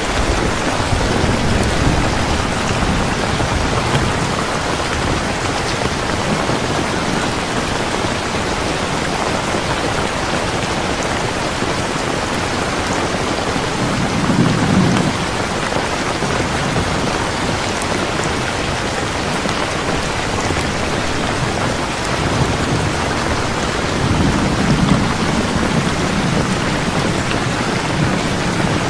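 Heavy rain falling steadily, with low rolls of thunder about a second in, around the middle, and again near the end.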